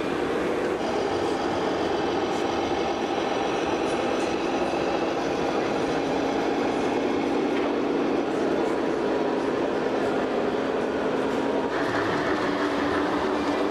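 Steady mechanical running noise of model machinery over the busy hum of an exhibition hall, with the sound changing abruptly twice, about a second in and near the end.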